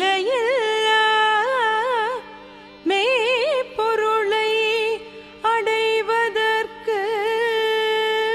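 A solo singer's voice through a microphone, singing a wordless stretch of a Tamil devotional song. Long held notes are decorated with quick wavering turns of pitch, in phrases broken by short pauses for breath.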